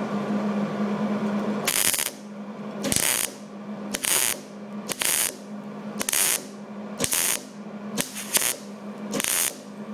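MIG welder striking a row of short tack welds on thin sheet steel: about nine brief bursts of arc sizzle, roughly one a second, starting about two seconds in, over a steady hum. The torch is held at an angle for a colder weld that does not blow through the thin metal.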